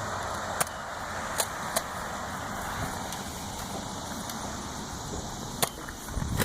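Steady rushing noise of a vehicle on a nearby road, with a few sharp clicks over it, about half a second, a second and a half and two seconds in, and again near the end.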